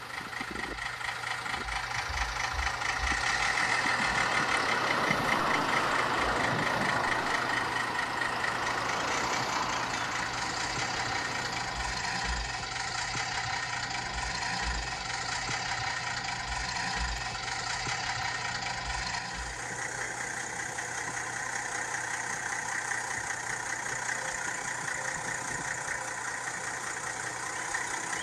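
Güldner G 35S tractor's diesel engine running steadily at idle.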